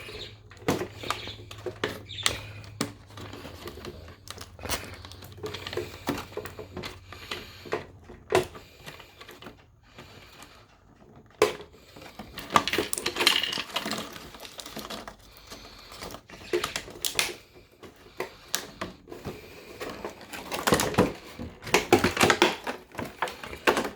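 Irregular clicking, tapping and rattling of hard plastic being handled: the Hatchin' Yoshi toy and its packaging being worked at by hand, with denser flurries of clicks about halfway through and near the end.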